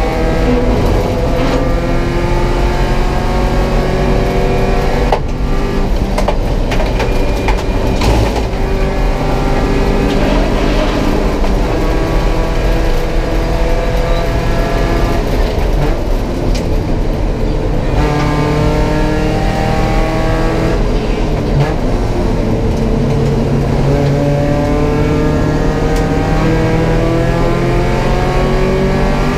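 Porsche 944 race car's four-cylinder engine heard from inside the cockpit at racing speed. Its pitch climbs again and again under hard acceleration and drops back between the climbs, notably about five seconds in and again about two-thirds of the way through. A few short clicks sit over the engine early on.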